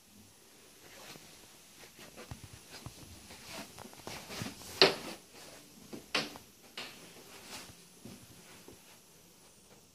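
Footsteps and handling noise of someone walking with the camera: scattered light knocks and rustles, with two sharper knocks about five and six seconds in.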